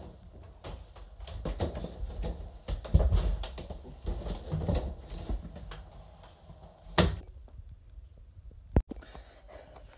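A person clambering in through an open window: scuffing, knocking and rustling against the sill and frame, with one loud thump about seven seconds in.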